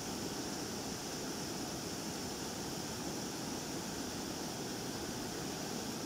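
Flash-flood runoff, muddy and swollen, pouring through a rocky stream's rapids: a steady, even rush of churning water.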